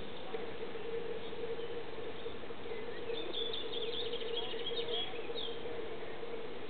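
Frogs calling in chorus, a steady, even drone held at one low pitch. Birds chirp briefly around the middle.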